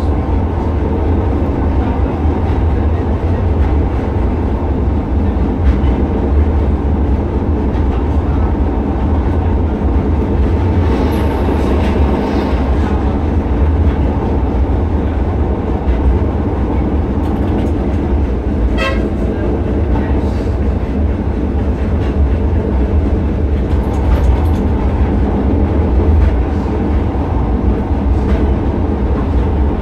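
Blackpool Balloon double-deck tram 700 running along its track, heard from inside the front cab: a steady, loud rumble of motors and wheels on rail. A brief high note sounds about two-thirds of the way through.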